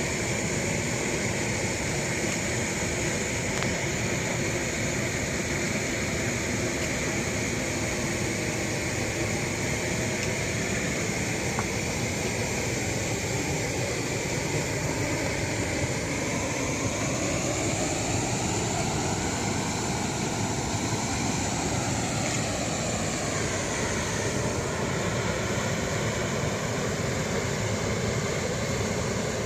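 Steady rush of a waterfall: continuous falling-water noise with no breaks.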